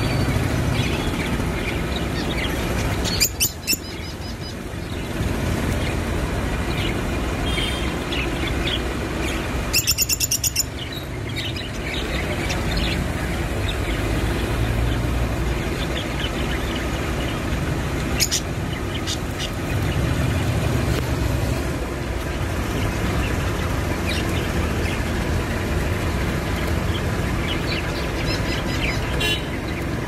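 Caged budgerigars chirping and chattering, with quick runs of sharp chirps about 3 and 10 seconds in, over a steady low rumble.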